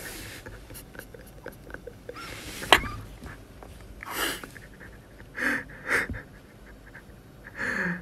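A young man's stifled laughter behind his hand: several short, breathy bursts of air, the last one briefly voiced and falling in pitch. A sharp click cuts in about three seconds in.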